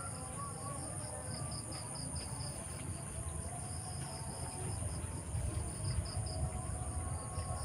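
Crickets and other insects calling: pulsed runs of chirps over a steady, high-pitched insect trill, with a low rumble underneath.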